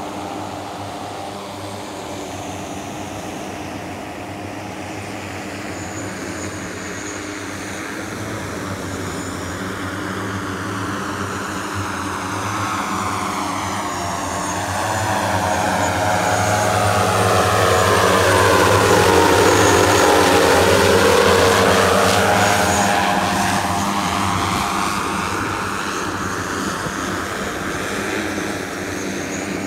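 Propellers of a manned multirotor hoverboard droning steadily. It grows louder, is loudest a little past the middle, and fades again, its pitch sweeping as it flies past.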